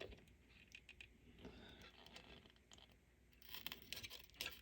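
Near silence with faint small clicks and scratches of hand work on a power-supply chassis, freeing a wire from a terminal; the clicks come closer together in the last second or so.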